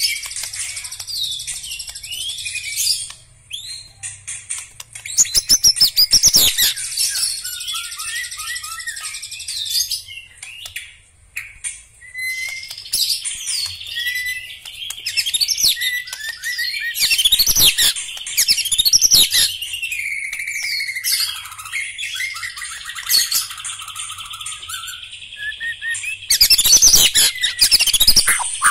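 White-rumped shama (murai batu) singing a long, varied song of rapid whistles, trills and chattering phrases. The song is loudest about five seconds in and again near the end.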